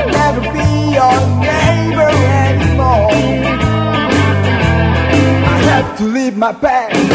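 Background rock music with a singing voice over guitar and a repeating bass line; the bass drops out near the end.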